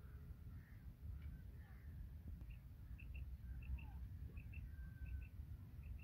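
Quail calling: short high chirps in twos and threes, repeated every half second or so. Other birds call faintly, over a low rumble.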